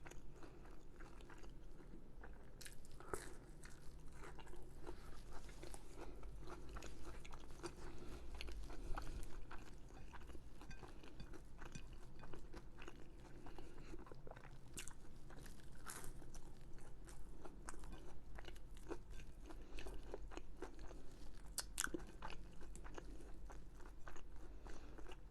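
Close-up eating sounds: a person chewing and biting crunchy food, quiet, with many small scattered clicks.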